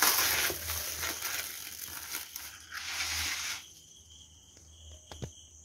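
Clear plastic wrapping on a punnet of button mushrooms crinkling and rustling as it is pulled off, for about three and a half seconds. Two light knocks follow near the end.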